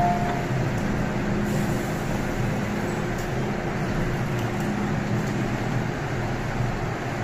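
Steady low rumble and hum on an underground MTR station platform, with the last note of the train's door-closing chime fading out at the very start.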